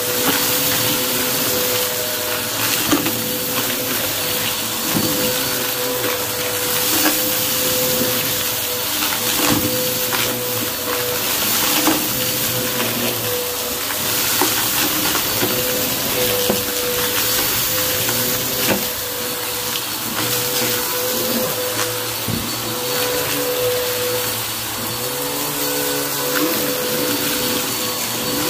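Upright bagless vacuum cleaner running steadily, with a constant tone over its rushing airflow, as it sucks up a thick layer of confetti, glitter and small debris from carpet. Scattered crackles and clicks come from pieces being pulled into the nozzle.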